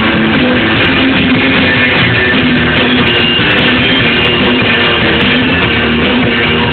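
Live rock band playing through a stage PA, with electric guitar over drums, heard from within the crowd.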